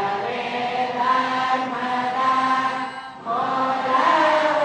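A large group of boys chanting in unison in long held notes, with a brief break about three seconds in.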